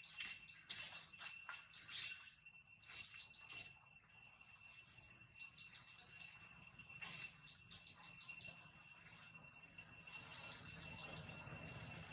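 High-pitched chirping in rapid trains, each about a second long and coming every couple of seconds, over a steady high hum. A few faint clicks come in the first couple of seconds.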